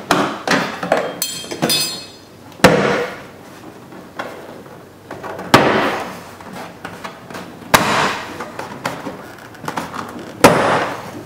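Plastic retaining clips of a 2003 Honda Civic rear door trim panel popping loose as the panel is pried away from the door. There are four sharp snaps two to three seconds apart, with lighter clicks between them.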